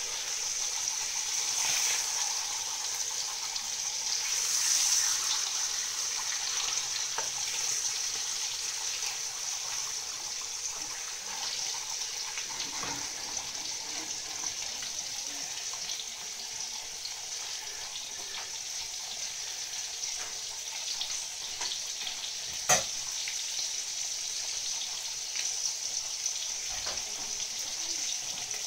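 Slices of chicken salami sizzling in hot oil in a frying pan: a steady hiss with scattered small crackles. There is one sharp click a little over three-quarters of the way through.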